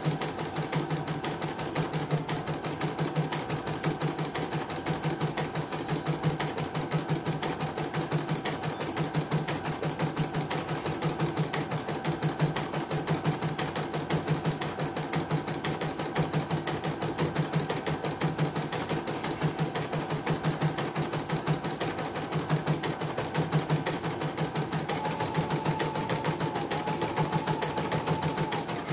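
CNY portable computerized embroidery machine stitching a design at a rapid, even rhythm, needle bar and hoop drive running steadily on a test run after repair. A faint whine joins near the end.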